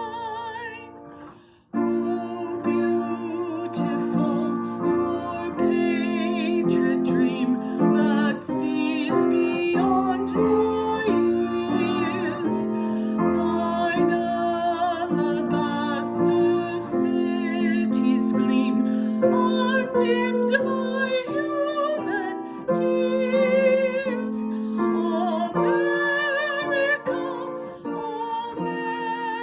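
Music: a singer with a wavering vibrato over piano accompaniment. The music drops out briefly about a second and a half in, then starts again and carries on steadily.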